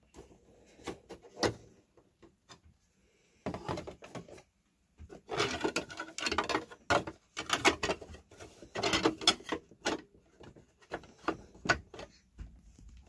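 Hard plastic clicking, knocking and rattling as the hull panels of a toy Millennium Falcon are handled and lifted open. The sharp clicks come in irregular clusters, busiest in the middle.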